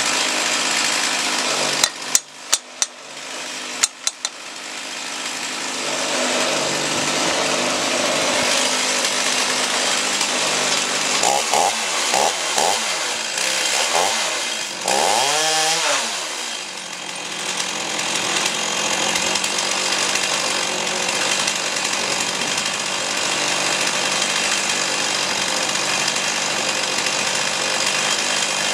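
Two-stroke chainsaw on a homemade chainsaw mill ripping through an oak log, running flat out. About two seconds in the noise drops briefly with a few sharp knocks, and midway the engine pitch swings up and down several times before settling back into the steady cut.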